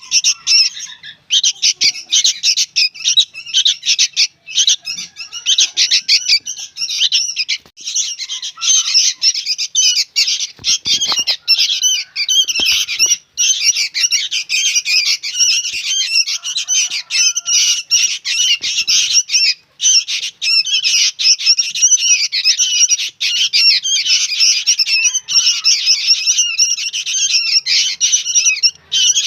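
Young sooty-headed bulbul (kutilang) calling noisily without pause: a dense stream of rapid high chirps, several a second.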